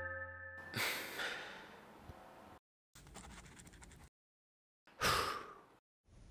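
Background music cuts off, then two short breathy rushes of noise, like gasps, come about four seconds apart. Between them a pen scratches on paper for about a second.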